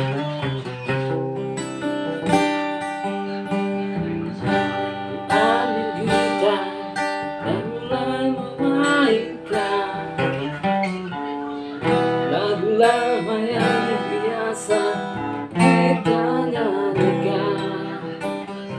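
Acoustic guitar strummed steadily, playing the instrumental lead-in of a song, with a gliding melody line over it through the middle.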